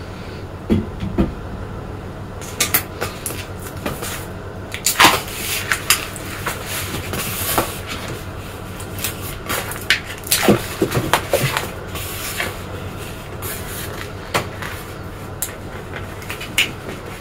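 Latex modeling balloon being handled and tied off by hand: irregular rubber squeaks, rubs and sharp little clicks under the fingers.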